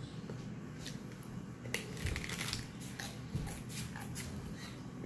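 Crunching bites into a hard corn taco shell, which she finds too stale: a dense run of sharp cracks and crackles about two seconds in, then scattered crunches of chewing.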